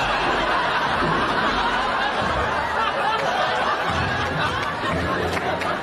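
A crowd of many voices laughing and chattering together in a steady, dense din.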